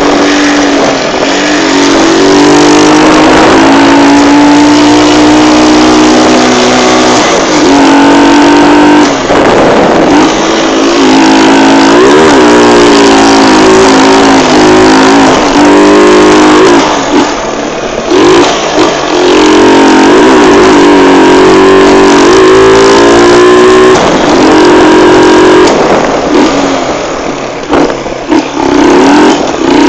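Motorcycle engine and exhaust under way, revving up and falling back again and again as it is ridden through the gears. Twice, a little past halfway and again near the end, the engine briefly drops back as the throttle eases off.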